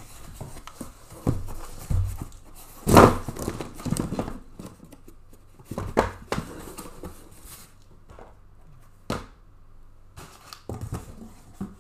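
Cardboard hobby boxes and their packing paper being handled: irregular rustling and crinkling with several sudden thumps, the loudest about three seconds in.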